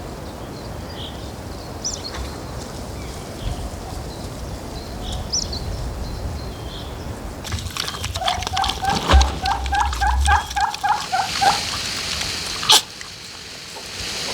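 An animal calling in a quick run of about a dozen short repeated calls, some three a second, about halfway through, with faint bird chirps before it and a single sharp click near the end.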